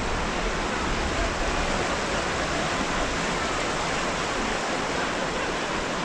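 River rapids rushing around wooden bridge pilings: a steady, even rush of white water.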